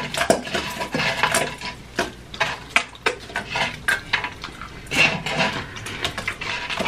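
Close-miked chewing and crunching of crispy fried potato pieces, with irregular crackles and clicks as crumbs are picked off a metal griddle.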